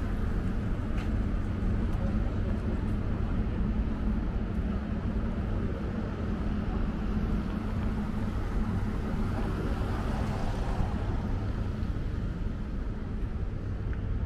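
Steady low engine rumble with a faint droning hum.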